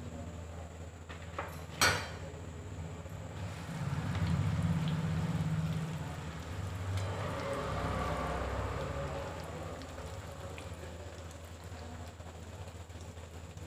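Bread slices deep-frying in hot oil in a kadhai, a steady crackling sizzle, with one sharp knock about two seconds in.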